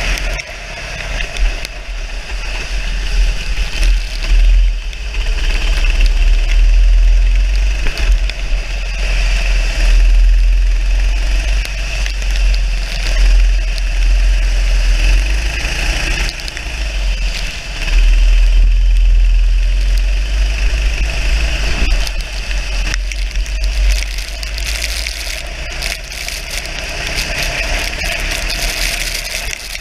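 Onboard sound of a racing kart's engine running hard, its note rising and falling with the throttle through the corners, with wind rumbling on the camera microphone.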